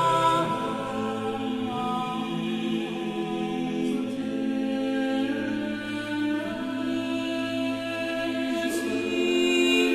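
Background choral music: unaccompanied voices singing slow, long-held chords in a chant-like style, the chords changing every second or two.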